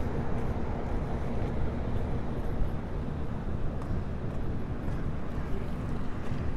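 Steady low rumble of vehicle engines and street traffic, with a faint constant hum running under it.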